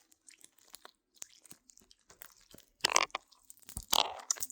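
Bead-filled tap squishy being tapped and handled: a run of small crisp clicks and crunches, with two louder crunches about three and four seconds in.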